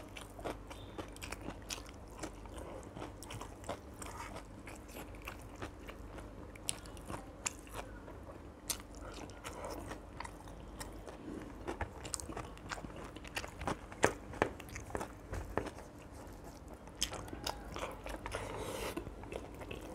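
A person eating fried fish and rice by hand: chewing, and fingers picking bones out of the fish, in scattered sharp clicks.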